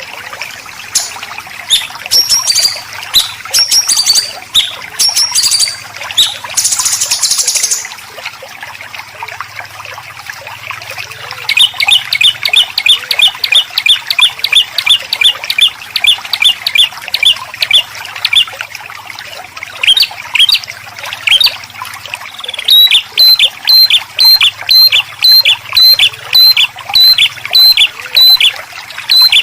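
White-rumped shama and greater green leafbird 'besetan' calls: harsh, scratchy song phrases, then long runs of rapid repeated sharp notes, about four a second. They turn louder in the last third. Trickling water runs steadily underneath.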